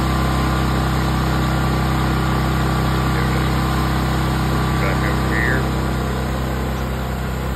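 Pressure washer engine running steadily at constant speed, dropping slightly in level about six seconds in.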